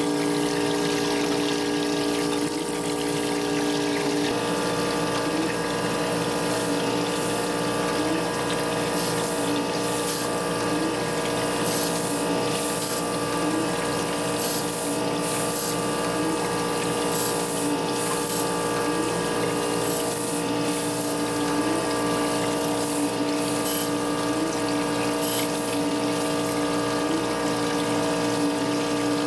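Surface grinder running with its coolant on: a steady machine hum with several held tones under the splash of coolant jetting from a multi-stream stainless nozzle onto the wheel and workpiece. One of the higher tones drops out about four seconds in, and a faint tick repeats a little more than once a second.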